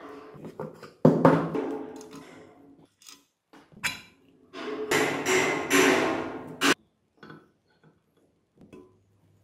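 Metal parts clinking and knocking against the aluminium crankcase half of a Bajaj three-wheeler engine as a gear is worked off its shaft by hand: separate sharp knocks, a loud one about a second in, then a longer ringing scrape a little past halfway that ends in a sharp click.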